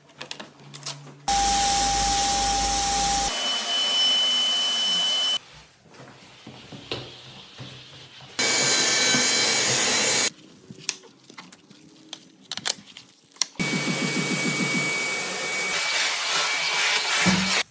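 Parquet floor-sanding and brushing machines running in short edited bursts of steady machine noise with a whine, each starting and stopping abruptly. Quieter stretches of clicks and scrapes on the wooden floor lie between the bursts.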